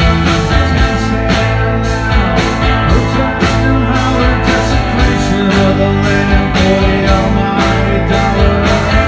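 Live rock band playing loud: electric guitars, electric bass and drums keeping a steady beat, with a man singing lead over them.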